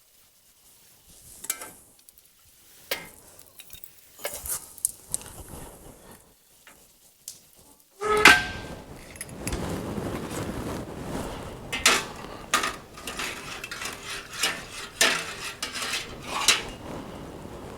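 Metal pieces clinking and knocking as they are handled and set down, scattered at first. About eight seconds in, a steady background hiss starts, and the clinks and knocks come more often.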